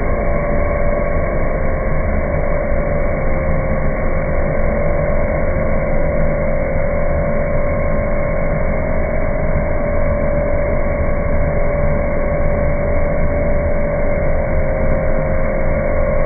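CNC router running steadily: a constant high whine over a dense, even machine noise, with no breaks or changes.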